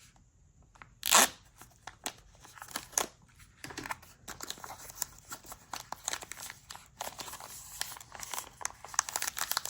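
Accessory packaging being opened by hand: a sharp tear about a second in, then continual crinkling and rustling of wrapping.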